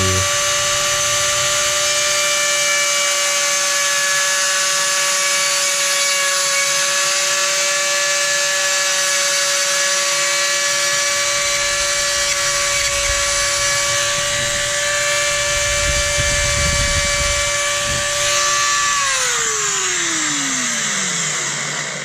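Handheld electric rotary tool running with a steady high whine as a small bit drills into the pipe's head to seat shell inlays. About three seconds before the end it is switched off and the whine falls in pitch as the motor spins down.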